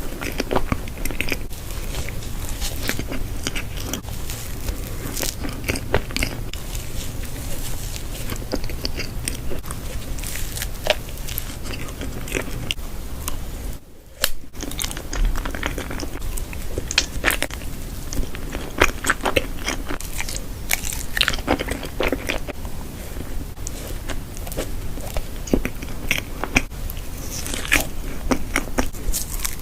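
Close-up eating sounds: repeated crunchy bites and chewing, with a brief break about halfway through.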